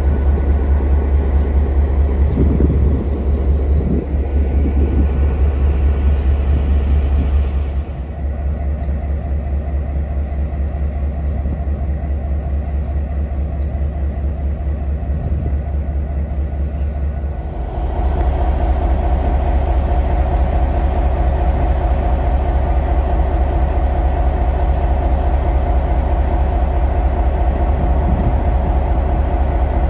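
EMD diesel-electric locomotive engine idling with a steady, loud, low drone while the freight train stands in the station. About 18 seconds in it grows louder and fuller, with added humming tones.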